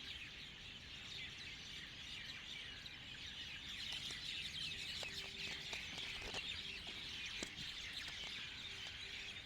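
Many small birds chirping and twittering at once, a continuous chorus of short high calls that grows a little louder about halfway through.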